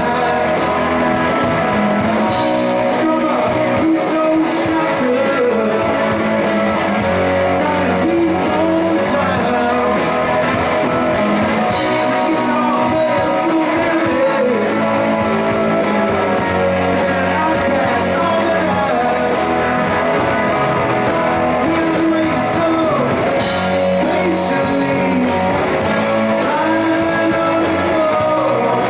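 Live band performing a rock song: a male lead vocal singing over several strummed and picked guitars.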